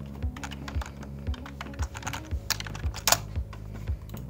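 Computer keyboard and mouse clicks, scattered and uneven, with one sharper click about three seconds in. Under them runs soft background music with a steady beat of about two pulses a second.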